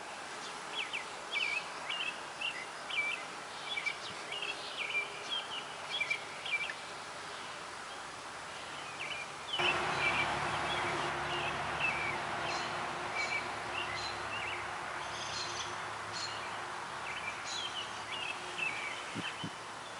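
Birds chirping in short, repeated calls over a steady outdoor hiss, which turns louder a little before halfway through.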